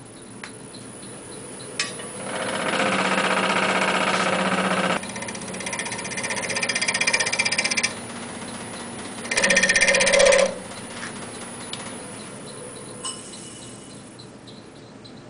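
Wood lathe spinning an off-center goblet stem while a hand-held turning tool cuts it in three passes, the last one short and loud. The off-axis wood strikes the tool once per turn, so each cut is a fast rattling chatter over the lathe's low hum.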